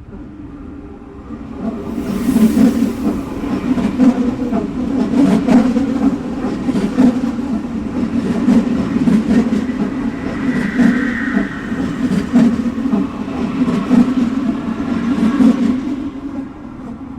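Subway train running on the tracks: a steady rumble with many sharp clacks of the wheels over the rails. It builds about two seconds in, has a brief high squeal around the middle, and dies down near the end.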